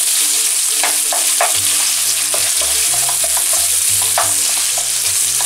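Crumbled fresh sausage sizzling in hot olive oil in a nonstick frying pan, with a steady hiss. A wooden spoon breaks up the meat, scraping and tapping against the pan a few times.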